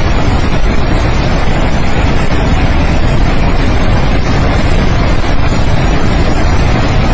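Floodwater from the glacier burst rushing in a loud, steady torrent.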